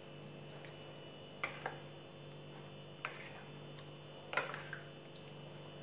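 A metal spoon stirring thick semolina batter with chopped vegetables in a glass bowl: a handful of light clicks and scrapes as the spoon knocks the glass, over a steady low hum.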